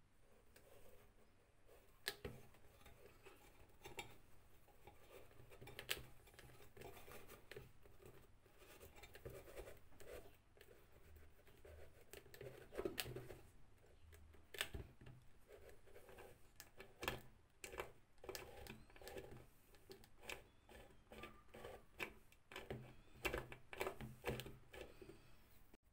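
Cotton wick and metal wick tube of a kerosene stove being handled and pressed into the stove body: soft fabric rubbing and scratching, with scattered sharp clicks and taps of metal.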